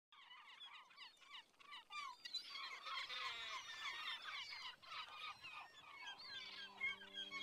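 A flock of birds chirping and calling: many short calls that rise and fall, overlapping more thickly after about three seconds. Music comes in near the end.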